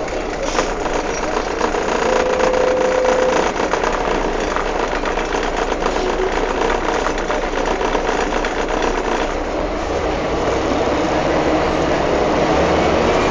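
Interior noise aboard a rear-engined Scania K310 city bus under way: the engine running steadily, with the body and windows rattling throughout.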